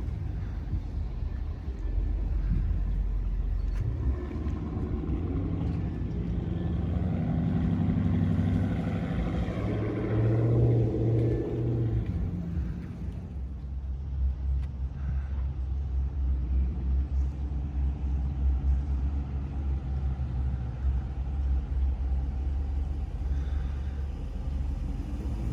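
A car engine running nearby, its pitch climbing for several seconds around the middle, then settling into a steady low rumble.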